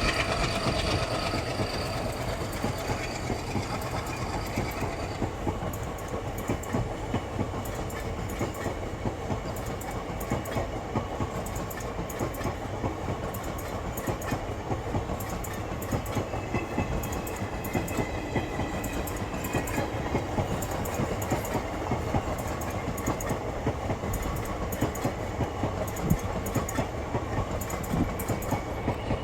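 A train rolling past, its wheels clicking and clattering steadily over the rail joints.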